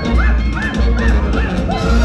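Upbeat show music with a steady, heavy bass beat and a short melodic figure repeating above it.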